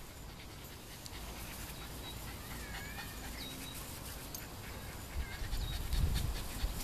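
Six-week-old puppies playing and scuffling in grass, with a few faint high squeaks about halfway through and light rustling. A low rumble comes in near the end.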